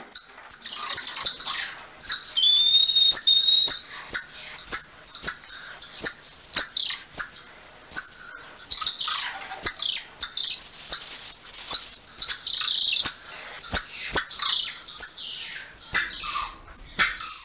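Golden lion tamarins calling: a rapid run of high, chirping squeaks, with a long held whistle about two seconds in and another around ten seconds in.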